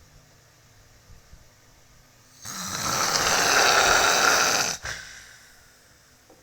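A sleeping person snoring: after a quiet pause, one loud, harsh snore lasting about two seconds, starting about two and a half seconds in.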